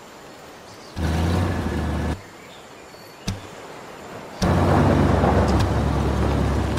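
Low rumbling noise that comes in two sudden swells: a short one about a second in, and a louder, longer one that starts past halfway.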